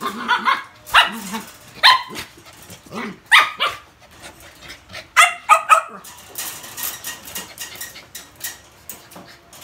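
Toy poodle barking: short, high-pitched barks, often two or three in quick succession, through about the first six seconds, then dying away into quieter rustling and clicking.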